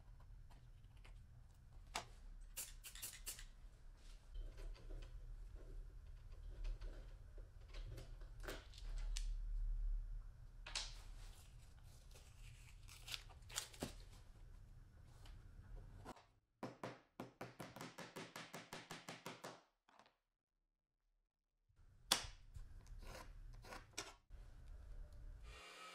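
Close hand-tool sounds on small wooden pieces: a utility knife blade scraping and scoring a wooden block, with scattered sharp clicks and rustling tape. A little past the middle comes a run of quick, even strokes, about five a second, and near the end a sharp click and a hand saw drawn across a thin wooden board.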